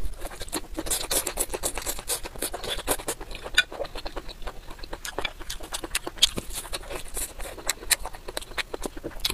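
Close-miked chewing of a bite of grilled long green pepper: a steady run of small, irregular crunches and wet clicks from the mouth.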